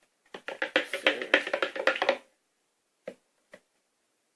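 Rapid tapping and knocking while the slime is mixed in a plastic bucket, for about two seconds, then two faint single taps.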